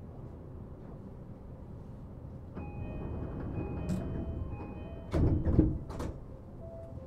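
Door-closing chime of a JR East E235 series train, a short few-note pattern repeated, followed by the sliding doors shutting with two heavy thumps, the loudest sounds here.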